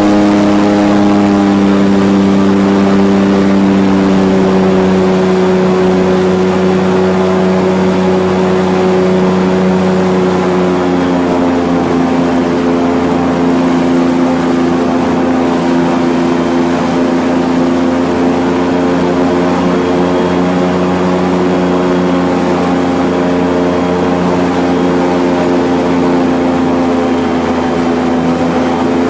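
Airboat's engine and air propeller running under way, a loud steady drone whose note shifts slightly about ten seconds in.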